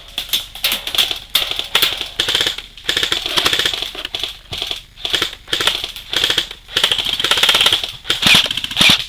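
Airsoft electric guns firing in rapid full-auto bursts, each burst a fast, even rattle of shots lasting under a second, repeated about a dozen times with short pauses between.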